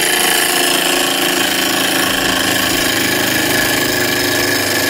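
Small Stirling engine fired by an HHO (oxyhydrogen) flame, running at full speed and driving a tiny DC motor as a generator; a loud, steady mechanical running noise.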